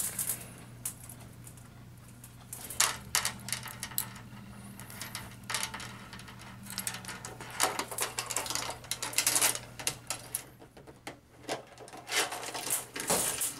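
Light metal hanging chain and S-hooks clinking and rattling in irregular clicks as they are handled and squeezed with pliers onto a shop light fixture, over a steady low hum.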